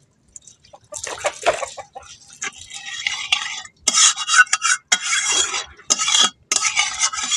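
Flat spatula scraping and stirring around a steel wok holding oil, in a series of separate scraping strokes, loudest about four seconds in.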